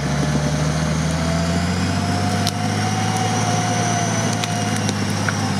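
Off-road 4x4's engine running steadily while its front winch whines, hauling the vehicle up a steep bank on the cable; the winch tone rises slowly at first, then holds steady.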